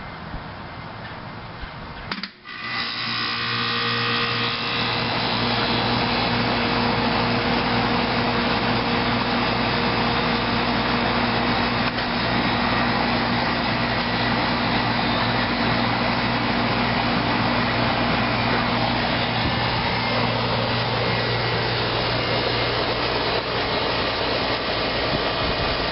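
1993 Carrier straight-cool condensing unit starting up about two seconds in: the compressor hum and the three-bladed condenser fan, driven by a GE fan motor, come up to speed over a couple of seconds, then run on with a steady hum and rush of air. The unit is a smooth runner.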